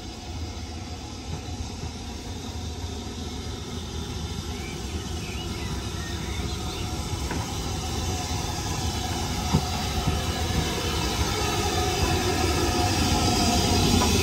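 A BR Standard Class 5 steam locomotive and its train approaching along the line, their rumble growing steadily louder.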